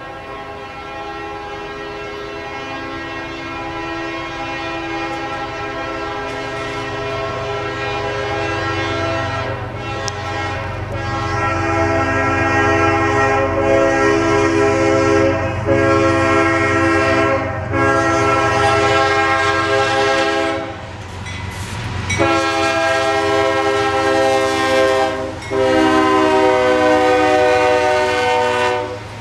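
CSX diesel freight locomotive's air horn blowing a series of long blasts with short gaps, growing louder as the train approaches. A low rumble from the passing train sits beneath it.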